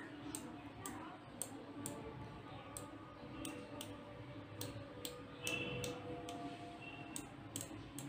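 Light, sharp clicks, about two a second and unevenly spaced, from fingers handling a small plastic inline LED dimmer control and its wires, over a faint background hum.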